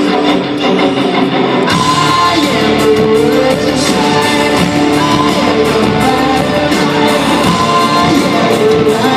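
A rock band playing with a singer, guitar prominent, the sound filling out with brighter high end about two seconds in.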